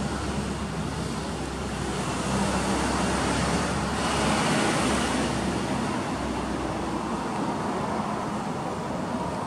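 Road traffic noise with a steady low hum underneath, swelling as a vehicle goes by about four to five seconds in, then easing.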